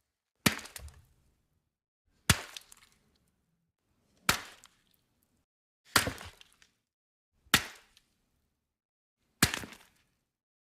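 Six separate smashing sound effects, each a sharp crack followed by a brief crackling tail of falling pieces, spaced about two seconds apart with silence between.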